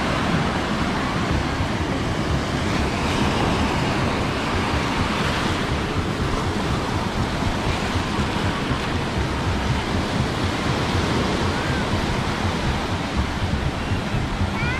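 Sea surf breaking and washing up a sandy shore, a steady wash of noise, with wind rumbling on the microphone.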